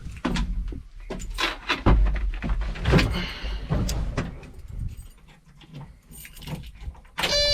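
Knocks, clicks and rattling of someone climbing into a bulldozer's seat and handling the ignition keys. Near the end a steady electronic buzzer tone sounds for about a second, as the dozer's ignition is switched on.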